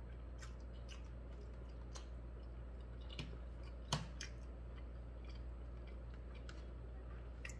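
A man chewing a mouthful of food with his mouth closed: scattered faint wet clicks and smacks, one louder about four seconds in, over a steady low hum.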